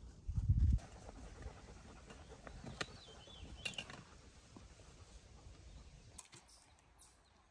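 Quiet outdoor trail ambience: a short low thud near the start, then faint scattered ticks and a brief high bird chirp in the middle.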